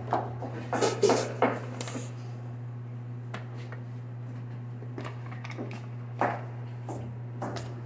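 Handling sounds of fruit pieces being placed on a platter on a steel counter: a quick run of clicks and taps, then a few single knocks, over a steady low hum.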